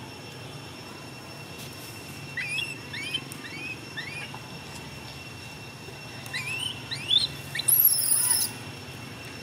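A series of short, high, rising chirping calls from an animal: four about half a second apart, then a second run, ending in a louder shrill squeal.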